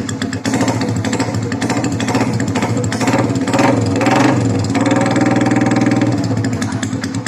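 Yamaha Vixion Old 150's single-cylinder four-stroke engine running on an open exhaust with no silencer, loud and raspy, revved up twice around the middle and settling back between.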